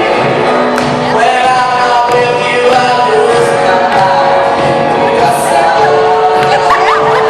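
A live band playing a song, with voices singing held notes over it.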